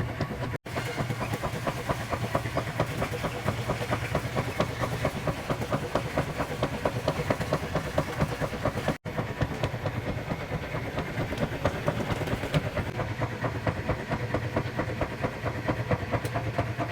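Laundry powder being sprinkled and handled: a fast, steady run of soft crackling ticks over a low steady hum, cutting out for an instant twice.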